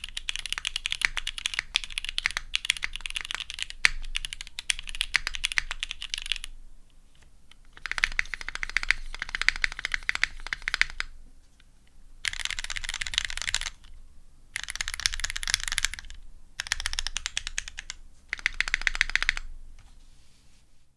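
Typing on a Bowl IDK60 prototype mechanical keyboard with lubed and filmed Gateron CJ switches with Cherry tops, a carbon-fibre half plate and GMK keycaps. Steady, dense keystroke clicking runs for about six seconds. It then breaks into five short runs of rapid keystrokes with brief pauses between them.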